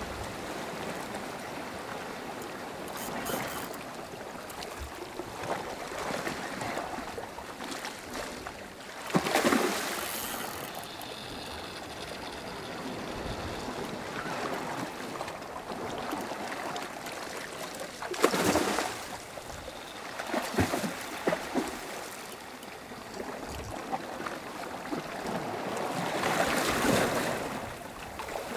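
Sea swell washing against rocks: a steady rush of water with several louder surges as waves break and splash.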